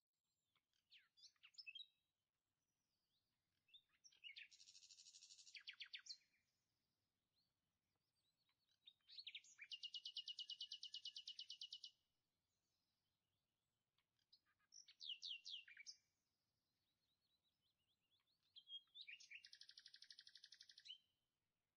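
Faint bird song: five phrases, each a few quick sweeping notes, most running into a fast, even trill, repeated every four to five seconds.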